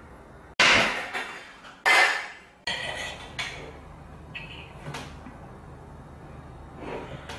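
A fork clinking and scraping on a ceramic plate while eating crepes topped with ice cream. Near the start come two loud, sudden bursts of noise, each dying away within about a second.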